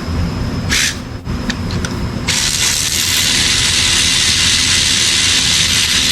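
A short hiss about a second in, then a loud steady hiss of a pressurized jet lasting about four seconds, over a constant low rumble.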